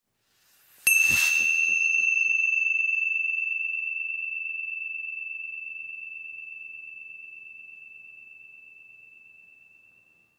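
A small bell struck once about a second in, ringing with a single high, clear tone that slowly fades away over about nine seconds.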